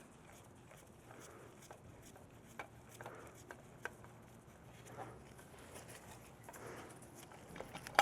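Faint, scattered light clicks and soft handling noise of chainsaw muffler parts being fitted back on by hand.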